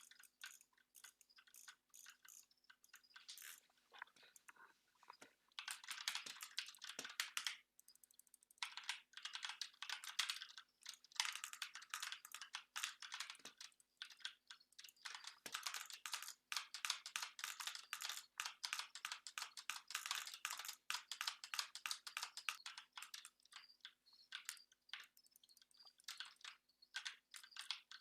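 Computer keyboard being typed on, rapid key clicks coming in fast bursts separated by brief pauses.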